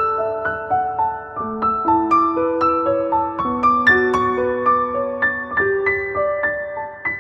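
Background music: a piano melody of single notes struck a few times a second, each ringing on as it fades.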